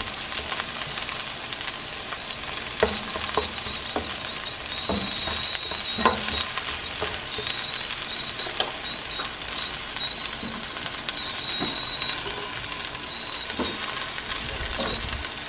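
Ginger, garlic, shallots and chilies frying in sesame oil in a pan, a steady sizzle as they brown, with a few clicks of the utensil stirring them.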